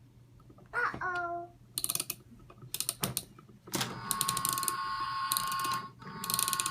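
Plastic toy train set clattering, with sharp clicks of pieces, then a steady electronic tone with rapid rhythmic clicking over it that breaks off briefly and starts again.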